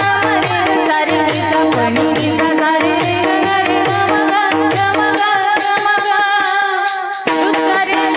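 Marathi devotional song: a woman's long, ornamented sung line over a steady held drone, with hand-drum strokes that bend down in pitch and jingling percussion keeping an even beat. The drums drop out for a moment about seven seconds in, then come back.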